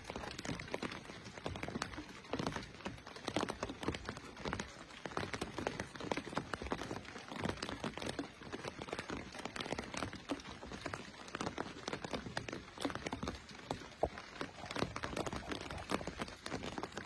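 Rain falling steadily, drops striking the canopy of an umbrella overhead as a dense, irregular stream of small taps.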